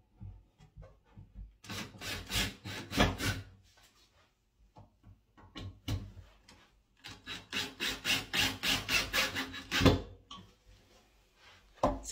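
Cordless drill driving pocket screws into wooden shelf boards, the screws grinding into the wood with a fast rattling pulse. It comes in two spells: a short one about two seconds in and a longer one of about three seconds later on, with small clicks of handling in between.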